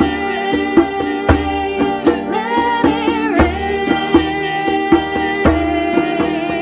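A song: a voice holding long sung notes over instruments and a steady drum beat.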